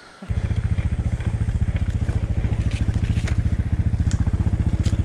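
Adventure motorcycle engine starting suddenly about a third of a second in and running at a steady, evenly pulsing idle, with a few faint clicks over it.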